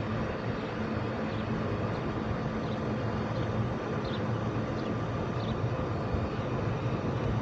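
Golf cart driving along, a steady low hum and rumble of the moving cart.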